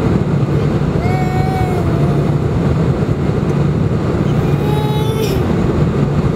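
Cabin noise inside a four-engined jet airliner on its landing descent: a steady low drone from the engines with the rush of air past the fuselage.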